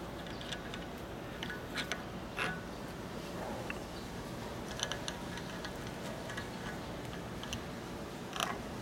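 Scattered light clicks and taps as the clear plastic ribbon spools and knobs of a date-coding printer are handled while an ink ribbon is fitted, over a steady low hum.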